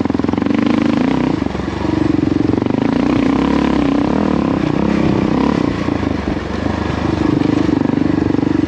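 Kawasaki KLR650's single-cylinder four-stroke engine running under load as the bike climbs a rough gravel trail. The throttle eases off briefly twice, about a second and a half in and again around six seconds, before pulling on.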